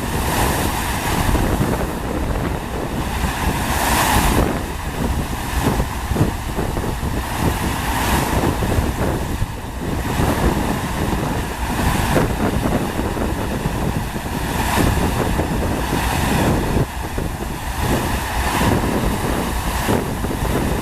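Steady rush of water from a FlowRider surf simulator, a sheet of water pumped continuously up its padded slope, with wind buffeting the microphone.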